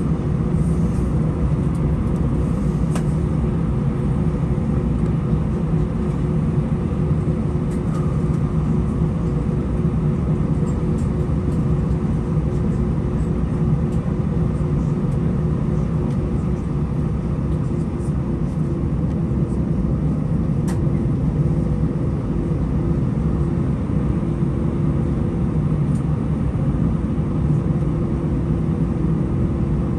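Airbus A319's CFM56 jet engines at low thrust, heard inside the cabin as a steady hum and rush with no spool-up.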